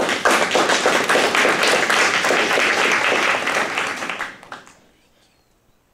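Audience applauding: a dense round of hand-clapping that dies away a little over four seconds in.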